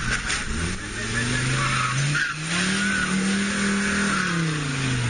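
Land Rover Defender's engine revving under load as it drives up out of a mud pit: the pitch climbs, dips briefly about two seconds in, climbs again and holds high, then falls away near the end.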